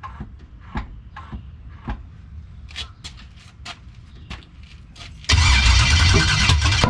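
A few scattered clicks and knocks, then about five seconds in the starter motor suddenly begins cranking the 1989 box Chevy's engine hard, which turns over without catching: the car has a no-start problem.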